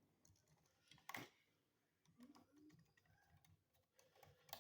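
Near silence with a few faint clicks and taps from handling a wire loop on a wall outlet's terminal screw, one about a second in and another near the end.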